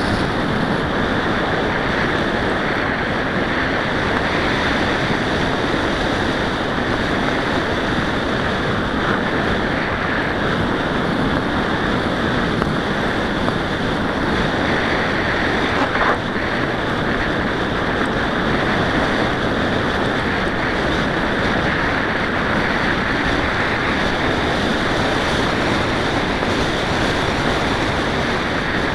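Steady rushing noise of a mountain bike rolling along a gravel track, with wind buffeting the microphone. One short knock about halfway through.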